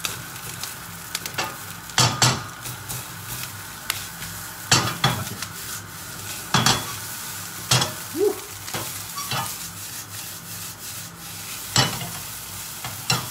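Hokkien noodles sizzling as they are stir-fried in a hot non-stick pan. Sharp clacks of the wooden spatula and the pan come every second or two as the noodles are tossed and stirred.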